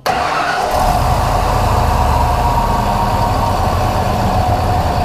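Freshly rebuilt Ford 351 Windsor V8 starts at once with a brief flare, then settles into a steady idle. It runs with the spark output connector unplugged, on base timing, for a timing check.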